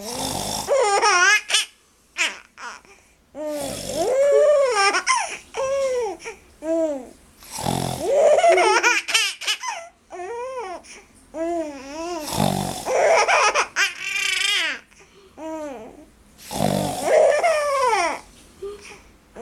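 A young girl laughing hard in repeated fits, set off by snoring sounds. A short, rough snore comes about every four seconds, five times in all, and each is followed by a run of high, bubbling belly laughter.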